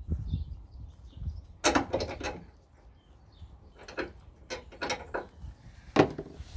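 Metal clanks and scrapes as a steel nail bar levers the front lower suspension arm down and the worn lower ball joint is worked out of the hub. The clanks come in a few clusters, with a single loudest knock near the end as the joint comes free.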